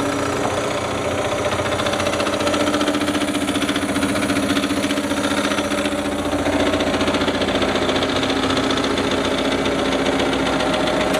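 IRCO 2.5K welding positioner's electric drive motor and gearing running under power as its table is turned and tilted, a steady mechanical whir and hum. Its tone shifts about six seconds in.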